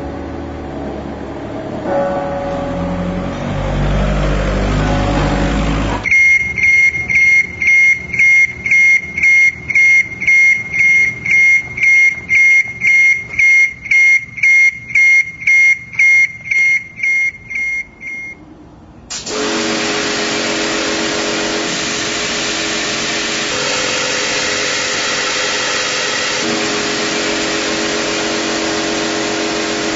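Low rumbling street noise, then a high electronic beep repeating about twice a second for some twelve seconds. After that comes a steady hissing spray with a motor hum under it, typical of a pressure washer jetting a wall.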